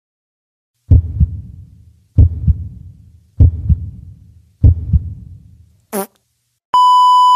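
Edited title-card sound effects: four deep booming impact hits about a second apart, each a quick double thud with a decaying rumble. Then a brief whoosh and, near the end, a sharp steady beep.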